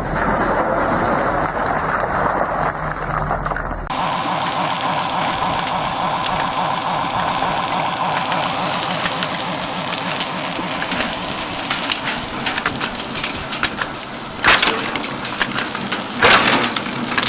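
Heavy wood-processing machinery running, with wood cracking and splintering in many sharp cracks over a dense noise; the sound changes abruptly about four seconds in.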